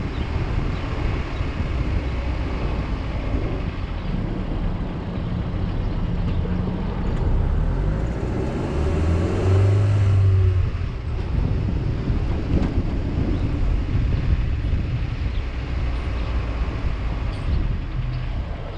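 Motor vehicle engine and road noise, a steady low rumble, with a louder low hum for a second or two around the middle.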